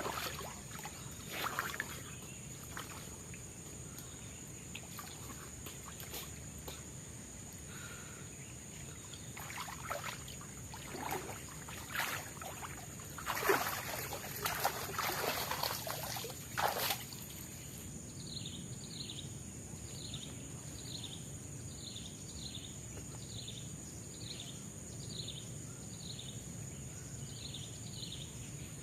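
Water splashing and pouring in irregular bursts over a steady high drone of forest insects. After about eighteen seconds the splashing stops and a short chirping call repeats about twice a second.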